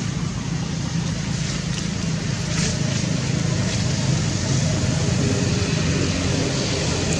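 Steady road traffic noise: a low engine drone with a hiss, getting a little louder about two and a half seconds in.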